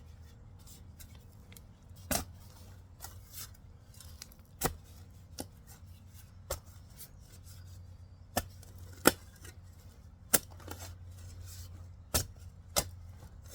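A digging tool working through dirt around tree roots: about nine sharp, irregularly spaced clicks and knocks as it strikes soil, stones and root, over a low steady hum.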